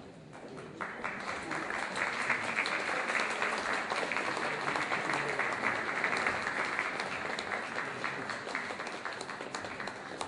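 Audience applauding. The clapping swells in over the first second or so and eases slightly toward the end.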